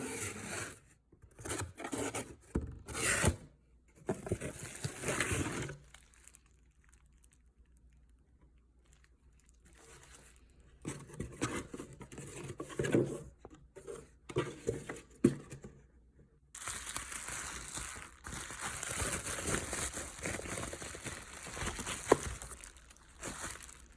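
Paper and cardboard packaging of an iPhone 13 mini box being torn open and handled: irregular bursts of tearing and crinkling, a few quieter seconds in the middle, and a longer stretch of steady rustling near the end.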